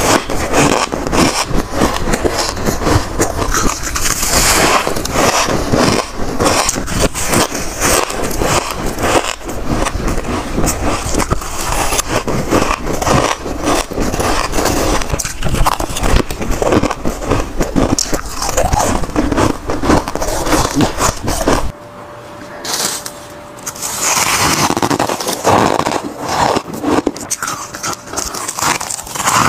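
Close-up crunching of powdery frost-ice being bitten and chewed, with a metal spoon scraping and scooping through it, as a dense continuous crackle. About 22 s in the crunching stops for a couple of seconds, then picks up again.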